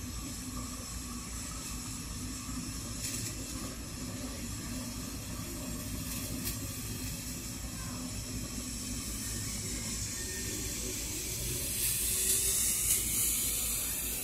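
A Diamond Fireworks colour smoke device burning, giving off a steady hiss as it pours out smoke; the hiss grows louder near the end.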